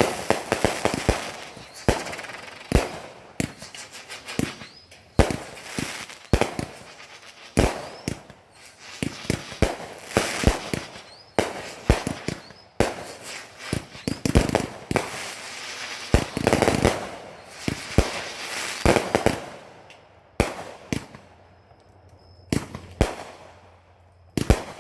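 Small firecrackers going off in an irregular string of sharp bangs, some in quick clusters, with fizzing between them. The bangs thin out to a few scattered ones near the end.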